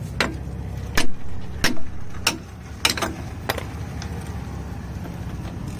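Socket ratchet clicking as the 18 mm brake caliper bolts are loosened, about six clicks spaced evenly in the first three and a half seconds, then stopping.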